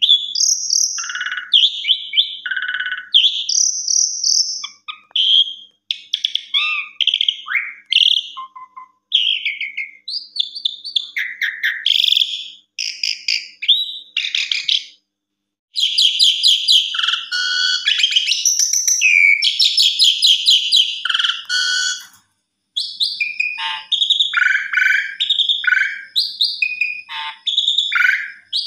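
Pied starling (jalak suren) singing a long, varied song of clear whistles mixed with harsh, rapid rattling chatter, broken by two short pauses, about halfway and two-thirds through.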